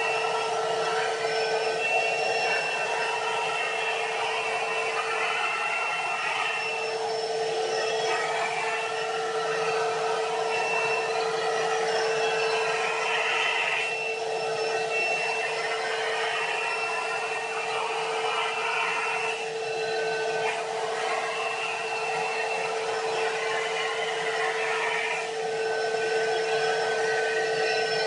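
Wet-and-dry tub vacuum running continuously, sucking polystyrene beanbag beads up through its hose and long pipe. It gives a steady motor hum over rushing air, and the higher part of the sound shifts now and then as the nozzle works through the beads.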